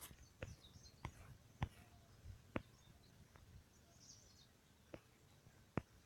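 Near silence: faint background room tone broken by about eight scattered faint clicks, with a few faint bird chirps in the distance.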